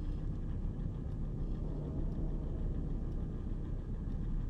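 Steady low rumbling drone, the ambient hum of a spaceship interior, even throughout with no distinct events.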